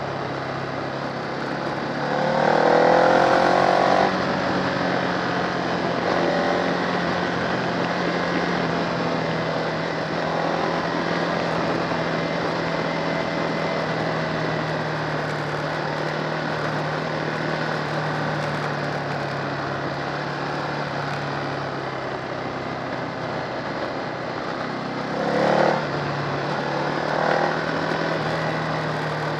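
Motorcycle engine running steadily under a constant rush of wind noise. A louder rev rises on acceleration about two seconds in, and two short revs come near the end.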